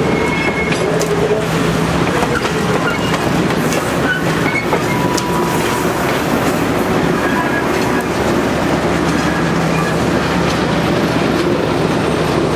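Passenger train rolling past at close range, its coaches, caboose and trailing diesel switcher clattering over the rail joints in a steady loud rumble.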